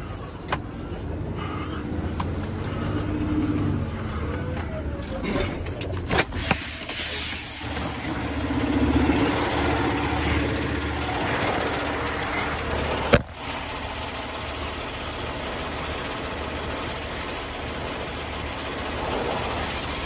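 A vehicle engine running steadily, with scattered rattles and one sharp knock about thirteen seconds in.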